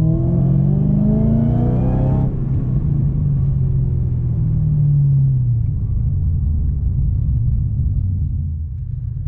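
HSV VF Commodore's supercharged V8 accelerating: the engine note and a fainter, higher supercharger whine rise in pitch together for about two seconds, then drop away abruptly. After that the engine settles into a steady low cruising sound.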